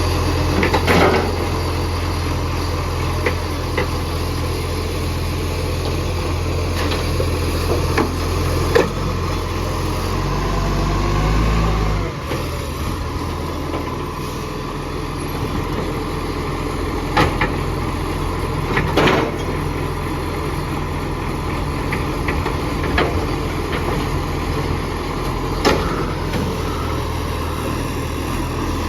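Recycling garbage truck's diesel engine running with an exhaust leak, a steady low drone. The engine note drops about twelve seconds in, and sharp knocks come now and then.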